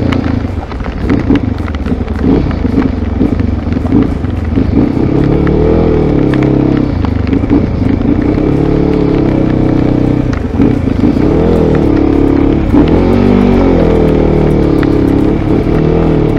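Mondial RX3i Evo's 250 cc single-cylinder engine running as the bike rides slowly in traffic, its revs rising and falling again and again. A steady hiss of rain and wind runs underneath.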